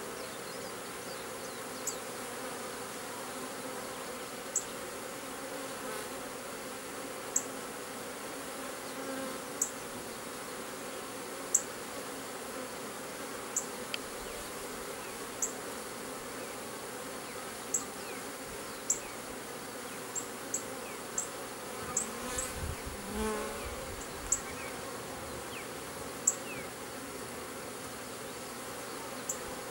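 Swarming honeybees buzzing steadily as they fly around and into a wooden swarm trap's entrance. A sharp, short, high chirp sounds every second or two over the buzz, and about two-thirds of the way through a single bee passes close with a louder, wavering buzz.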